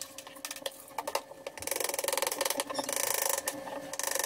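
Kitchen knife chopping cabbage on a wooden cutting board: a few scattered taps, then fast runs of chopping strokes from about one and a half seconds in.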